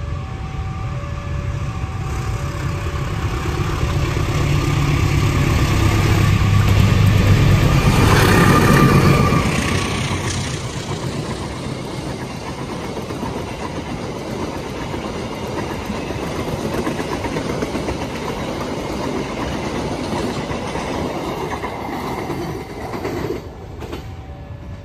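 Arjuna Express passenger train running through a station without stopping. The locomotive builds to its loudest about eight to nine seconds in, then the carriages roll past with wheel clatter for about fourteen seconds. The sound drops suddenly near the end.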